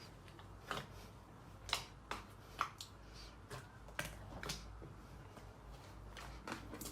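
Slime being pressed and worked by hand, giving faint, irregular sharp clicks and pops, about one or two a second.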